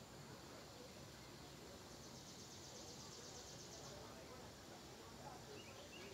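Near-silent outdoor ambience with a faint even hiss. An insect's rapid pulsing high buzz runs for about two seconds in the middle, and a few short high bird chirps come near the end.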